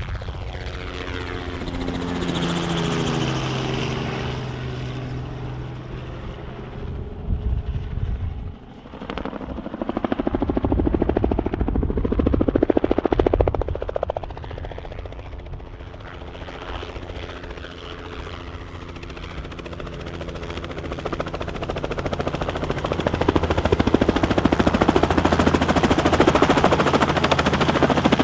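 Helicopter coming in to land for a pickup. Its pitch falls over the first few seconds as it passes, a rising whine comes about halfway through, and the rotor noise then grows louder and steady toward the end as it comes in close.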